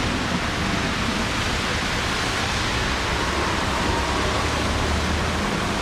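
Steady rushing hiss of traffic and airport ambience on wet pavement, with a low hum underneath that drops away near the end.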